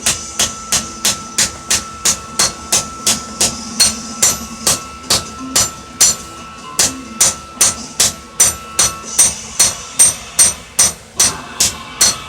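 Hand hammer striking steel on an anvil in a steady rhythm, about three to four blows a second, each blow ringing. A faint steady hum runs underneath and stops about three-quarters of the way through.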